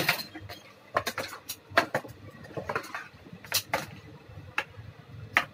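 Irregular light clicks and taps, about ten over the few seconds with quiet between, from fabric panels and hands being moved about on an industrial sewing machine's table while the machine stands still.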